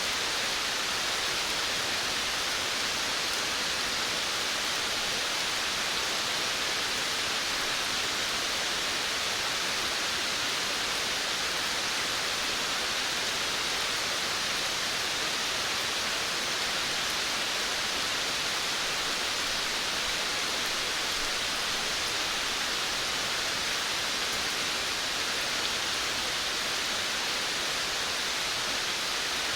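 Steady rain falling around a veranda, an even hiss with no separate drops or thunder standing out.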